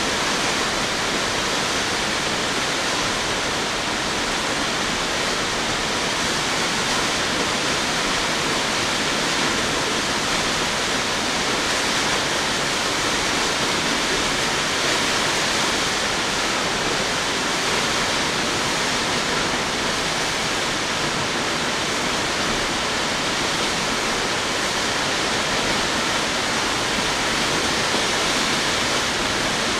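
South Falls, a 177-foot waterfall, rushing steadily: a loud, even roar of falling water with no breaks.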